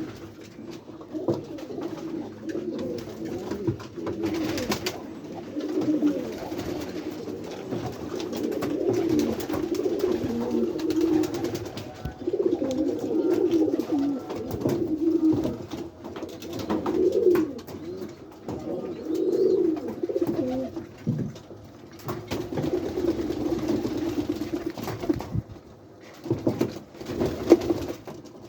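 Many pigeons cooing continuously in a small enclosed loft, their low warbling coos overlapping, with a few sharp knocks or wing flaps among them.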